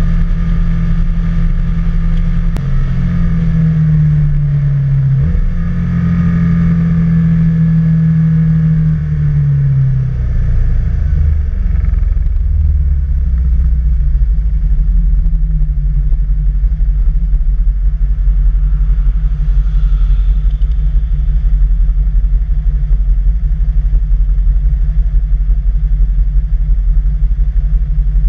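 Can-Am Spyder three-wheeled motorcycle engine running at road speed, heard from on board. The engine note rises a few seconds in, drops about ten seconds in, then holds a steady lower drone.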